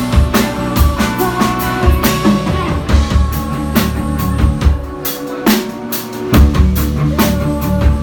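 Live rock band playing an instrumental passage: a drum kit with kick and snare beats over held instrument notes and bass, with no vocals. The kick drops out for about a second past the middle, then comes back in.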